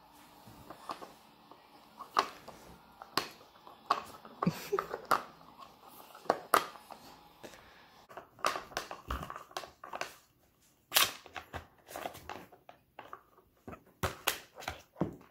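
A dog working a plastic treat-puzzle toy with its nose and paw: irregular clicks and clacks as the plastic bone-shaped covers are pushed and lifted.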